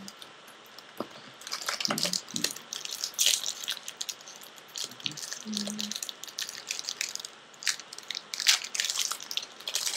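Foil trading-card pack wrapper crinkling as it is torn and handled, with cards slid and shuffled against each other, in irregular bursts of crackle starting about a second in.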